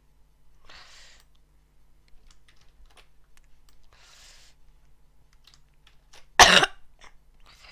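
Scattered computer mouse clicks and a few soft breathy hisses close to the microphone, then one loud, short cough about six and a half seconds in.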